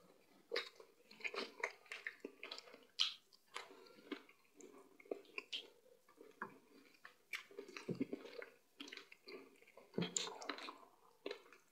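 People eating fufu and meat in peanut palmnut soup with their hands: a steady run of short wet chewing smacks and clicks, with fingers squishing the fufu in the soup.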